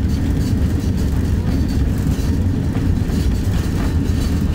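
Inside the cabin of a Boeing 737-800 rolling fast along a wet runway: a loud, steady low rumble of engines and wheels, with a hiss of air over the fuselage.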